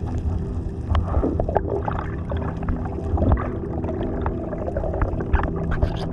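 Underwater sound of water gurgling and crackling with scattered clicks over a steady motor hum.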